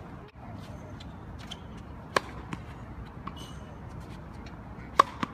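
Tennis ball struck with a racket and bouncing on a hard court: two sharp pops about three seconds apart, with lighter bounces between.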